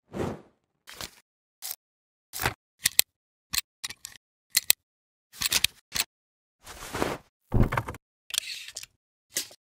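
Camera shutter sound effects: a series of short mechanical clicks and clacks at uneven spacing, with silence between them and a few longer noisy bursts in the second half.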